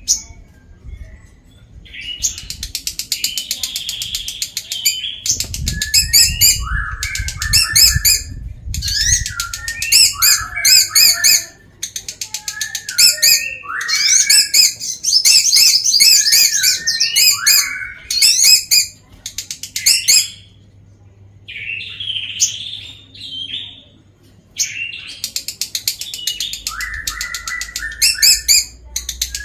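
Lovebird singing its long chattering song: rapid high-pitched chirps and trills in several long bouts, broken by brief pauses.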